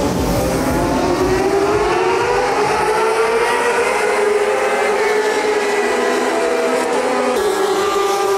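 A pack of racing motorcycles passing on the circuit at high revs, several engines overlapping, their pitches rising and falling as the bikes go by.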